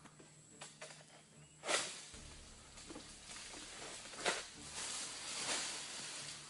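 Rustling, scraping bursts from a long oil palm harvesting pole working among the fronds of a palm crown, the loudest about two seconds in and again around four and five and a half seconds in.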